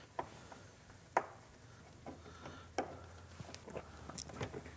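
Scattered light clicks and taps of a Phillips screwdriver and loose screws as the windshield screws are taken out of a motorcycle's plastic outer fairing, with one sharper click about a second in. Near the end come a few small ticks as the windshield is handled and lifted off the fairing.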